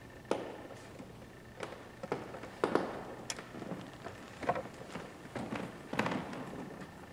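Slow footsteps on a hard floor: irregular sharp taps every half second to a second or so, with pauses between.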